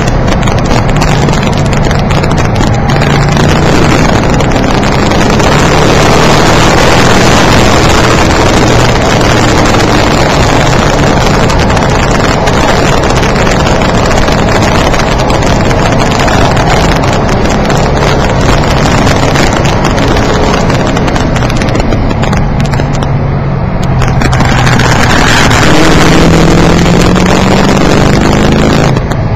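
Car engine and road noise heard from inside the cabin, loud and distorted on an over-sensitive microphone. The engine note climbs under acceleration, falls away briefly about three-quarters of the way through as the throttle is lifted, then climbs again.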